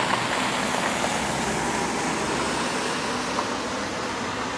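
Steady drone of road traffic and idling cars, an even rushing noise with a few faint ticks.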